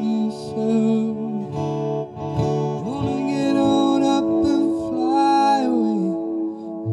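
Acoustic guitar played through a tape-echo delay, with a man singing long, drawn-out notes over it.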